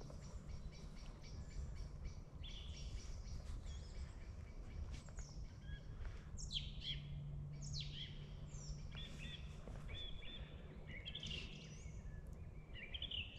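Several songbirds calling and singing, faint: scattered high chirps and quick falling whistles, sparse at first and busiest from about halfway on.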